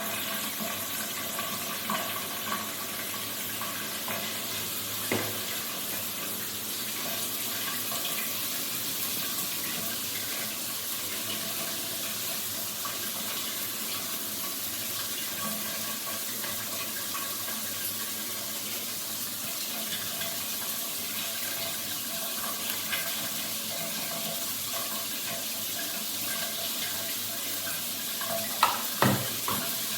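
Water spraying steadily from a shower head, an even hiss, with a few light knocks about 5 s in and near the end.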